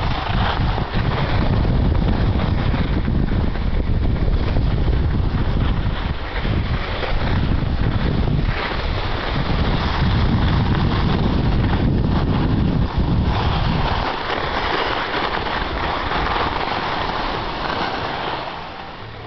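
Wind buffeting a camera microphone carried by a downhill skier, a heavy low rumble mixed with the hiss of skis sliding on packed snow. The rumble eases a few seconds before the end, then the whole sound drops as the skier slows.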